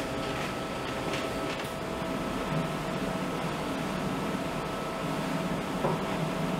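Steady hum of shipboard waste-processing machinery, with two steady tones running through it and a few faint clicks.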